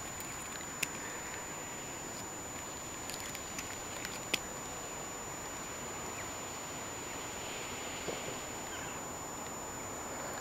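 Steady outdoor background noise with a few faint, short clicks.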